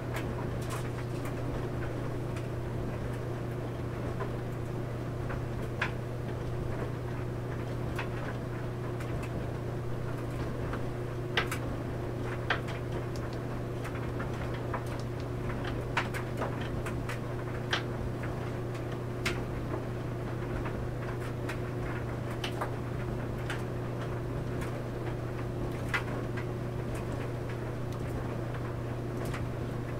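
Clothes dryer running with a steady low hum from its motor and drum, while the tumbling load gives irregular sharp clicks every second or two.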